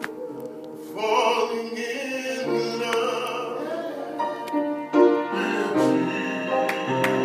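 A man singing a solo, accompanying himself on a church keyboard with held chords; his voice comes in about a second in over the chords and carries on in long phrases.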